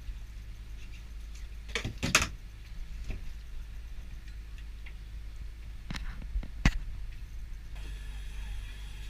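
Steady low hum of a longline fishing boat's engine and hauling gear while the line is hauled in, broken by a few sharp knocks and clatters, the loudest about two seconds in and just before seven seconds.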